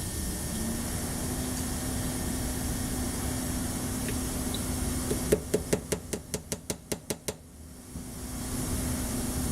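Steady background hum. About five seconds in comes a quick run of a dozen or so light clicks from small parts of a shotgun trigger group being handled, about six a second, fading over a couple of seconds.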